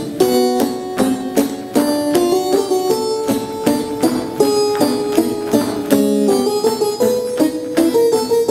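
Instrumental music: a quick melody of short notes over a steady percussion beat.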